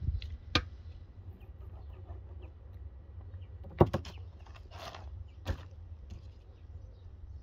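Knocks and thumps of a whole lamb carcass being handled and turned over on a cloth-covered table, the loudest a pair of knocks about four seconds in, with a brief rustle of the cloth and meat just after.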